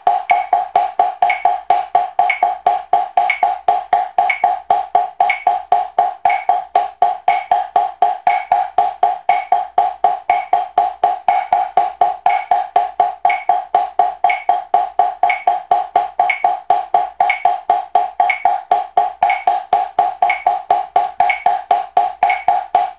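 Drumsticks playing fast double strokes (right-right-left-left) on a rubber drum practice pad on a wooden board: an even run of about four strokes a second. A metronome clicks once a second underneath at 60 bpm.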